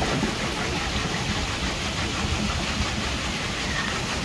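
The two wooden water wheels of a historic double water mill turning under running water: a steady rushing and rumbling with no clear rhythm.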